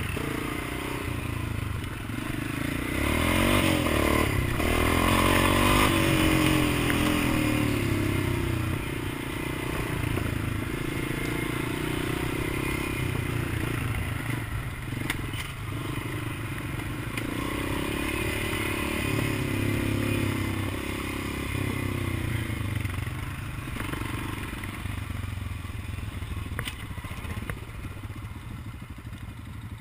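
Honda Rancher 350 ATV's single-cylinder engine running under changing throttle while riding a rough dirt trail, heard from on the machine, with its racks and body rattling and knocking over the bumps. The engine is loudest a few seconds in.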